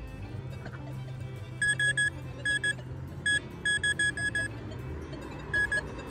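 Handheld metal-detecting pinpointer beeping in quick clusters of short, high beeps as its tip is pushed through a plug of dug soil; the beeping means a metal target lies in the loose dirt.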